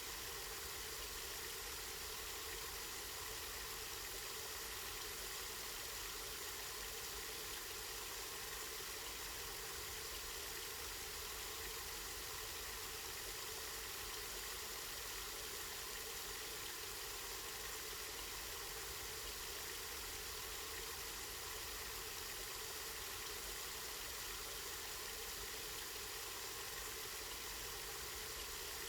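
Spring water flowing and splashing steadily.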